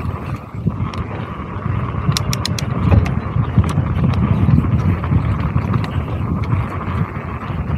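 Mountain bike descending a dry dirt singletrack: a continuous rough rumble of tyres over the dirt with wind on the microphone, and a quick run of sharp rattling clicks from the bike about two seconds in, with a few more later.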